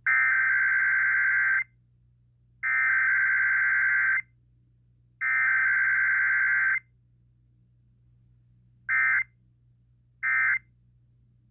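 Emergency Alert System SAME digital header: three long, buzzy data bursts of about a second and a half each, a second apart. Then come two short bursts about a second apart, the end-of-message code, marking a required weekly test.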